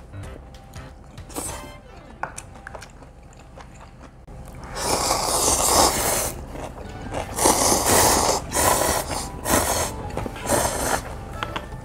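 Two people slurping instant cup-ramen noodles, starting about five seconds in: a run of loud, hissy slurps, each a second or so long. Before that there are only light clicks.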